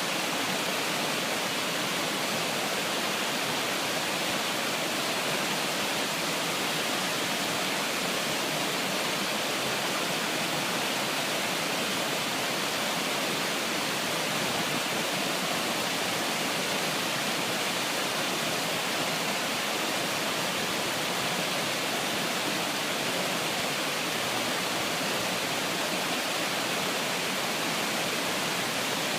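A steady, even rushing noise that does not change, with nothing else standing out.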